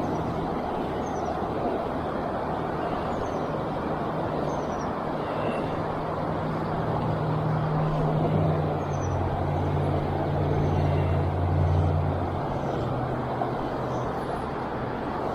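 A low engine hum from passing road traffic, swelling about halfway through and easing near the end, over a steady rushing of creek water.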